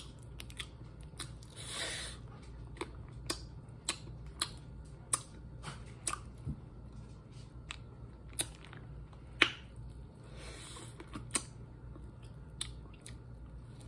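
Close-up eating sounds from a seafood boil: irregular wet mouth and finger clicks and smacks as boiled shrimp are peeled and eaten, with two short rustles, and a bite of corn on the cob near the end.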